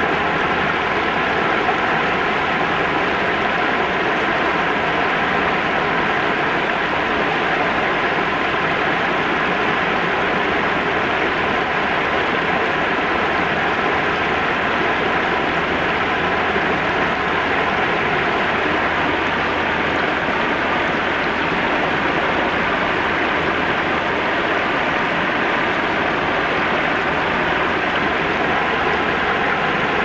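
River water spilling over a low weir and rushing through a shallow riffle: a steady, even rush that does not change.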